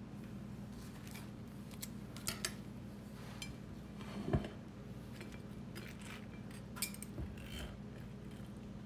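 Cutlery clinking against a plate: a few light, scattered clicks and one duller knock about four seconds in, over a steady low hum.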